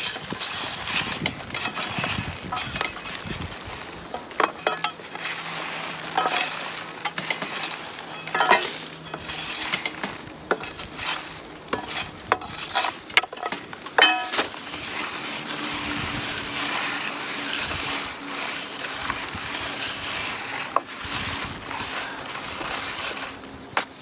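Shovelling and sifting soil: repeated scrapes and sharp clinks of dirt and small stones, irregular throughout.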